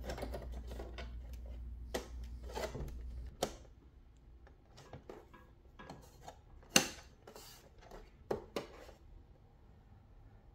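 Hands handling the plastic back of a computer monitor and its stand: scattered light plastic clicks and rubbing, with one sharper click about seven seconds in as the rear port cover is pressed.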